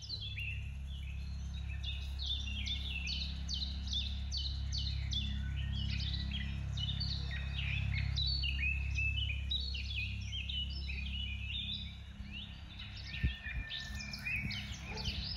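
Birds chirping: a dense run of quick, high, falling chirps, over a steady low hum that fades out about twelve seconds in.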